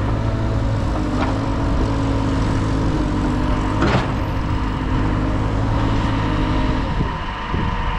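Backhoe loader's diesel engine running steadily under working load, with a steady higher tone over it that stops about seven seconds in as the engine note eases. Two sharp knocks sound about a second in and about four seconds in.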